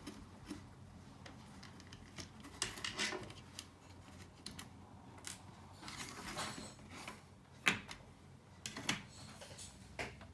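Small plastic and metal parts of a computer audio amplifier being handled during disassembly: scattered clicks, taps and short scrapes, the sharpest click a little under 8 seconds in.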